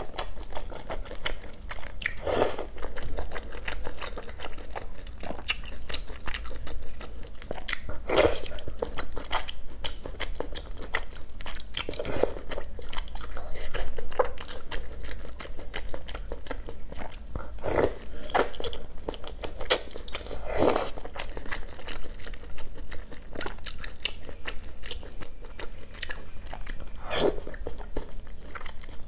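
A person close to the microphone, slurping and chewing wide, flat noodles coated in chili oil. Short, louder slurps come every few seconds over continuous chewing.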